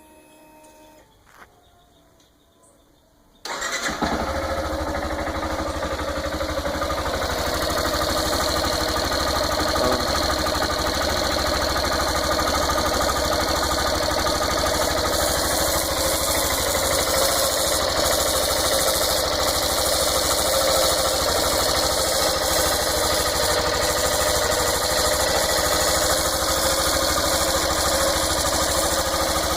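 Yamaha Fazer 150's single-cylinder four-stroke engine starting about three and a half seconds in, then idling steadily on a cold morning start. It carries the engine noise the owner hears at every morning start, which a mechanic blamed on the bottom end after work on the cylinder head did not cure it.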